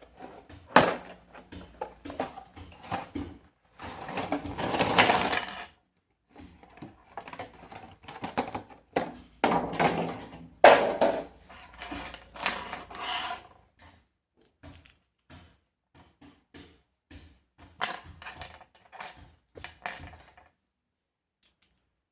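Irregular clicks, taps and knocks of small objects being handled, with two longer stretches of rustling or scraping, one about four seconds in and one about ten seconds in.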